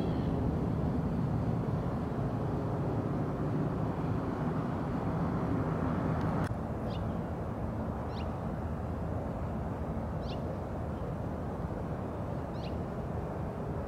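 Steady low outdoor rumble, like distant traffic, with a brief click about halfway through after which it is a little quieter. Over the second half, a bird gives short high chirps that slide downward, one every couple of seconds.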